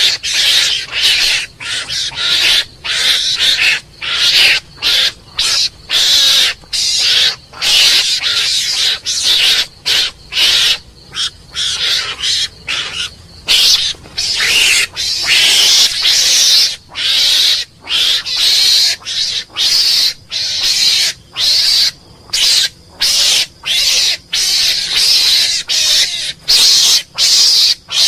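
Mongoose calling: a string of high-pitched, scratchy squeaks in short bursts, about one or two a second with brief gaps between them.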